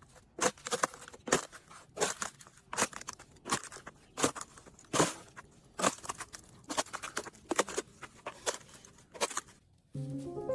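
Ice cracking and crunching in an irregular run of sharp snaps, two or three a second, stopping shortly before the end.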